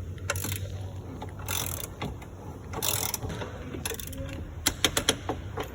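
Ratchet of a torque wrench tightening the oil drain plug to 33 foot-pounds: a few rasping ratchet strokes, then a quick run of sharp clicks near the end.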